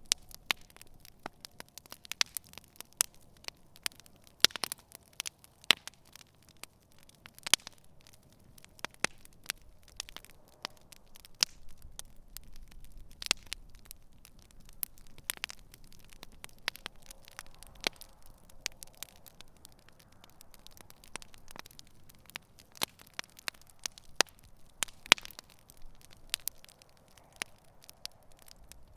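Wood campfire burning, crackling and popping in irregular sharp snaps over a soft low hiss.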